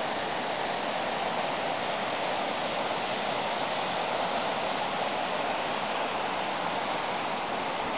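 Steady, even rush of the fast-flowing Firehole River.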